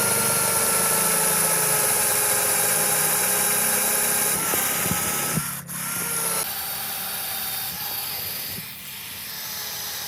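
Restored Makita cordless drill running free with a steady motor whine. It cuts out briefly a little past halfway, spins back up with a rising whine, and runs at a lower level toward the end.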